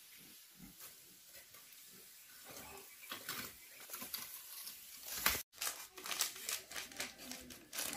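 Plastic spice sachet crinkling and rustling in the hands, a run of quick crackly rustles over the last few seconds. Before that there are only faint scattered knocks and crackles.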